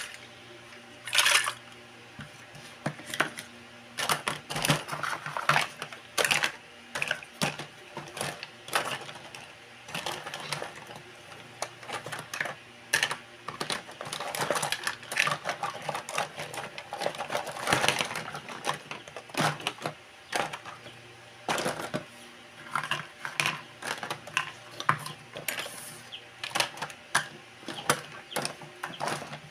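Small plastic toy dishes, cups and utensils clattering and clicking against each other and against a plastic basket as they are handled and sorted, in a string of irregular light knocks.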